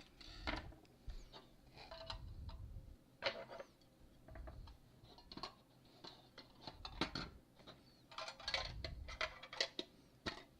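Small items and packaging being handled and unpacked: scattered light clicks, taps and clinks with short rustles, some of them small hard or metal pieces knocking together.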